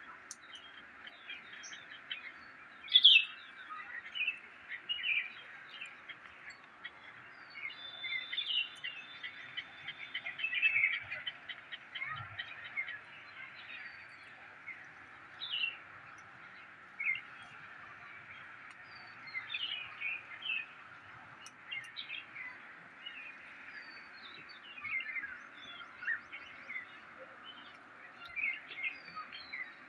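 Birds chirping: many short, scattered calls over a steady background hiss, the loudest chirp about three seconds in.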